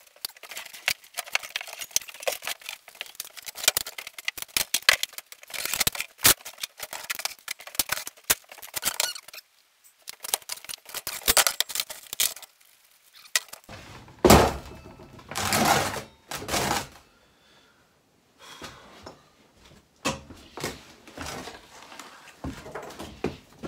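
Metal tools and parts being handled on a workbench: rapid clicks, clinks and scrapes for the first half, then two heavier thumps about 14 and 16 seconds in, followed by a few lighter knocks. No power tool is running.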